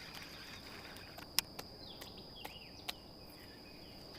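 Steady high-pitched insect drone, with a few short bird chirps over it and sharp clicks about a second and a half in and again near three seconds.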